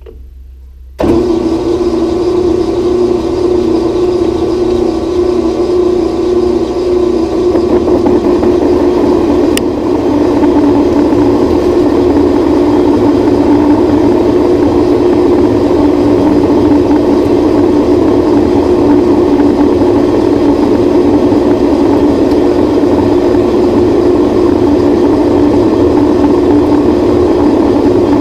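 Grizzly G0602 metal lathe switched on about a second in, starting suddenly and then running steadily, its chuck spinning a steel bar while the tool takes a dry cut. The tone shifts about seven seconds in.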